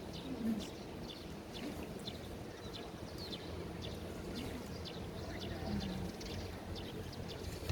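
Steady low rush of wind and sea water, with short high chirps repeating irregularly a few times a second over it.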